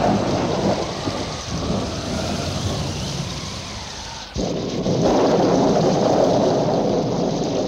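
Thunderstorm sound effect: steady rain with rumbling thunder, and a new loud thunderclap breaking in suddenly about four seconds in.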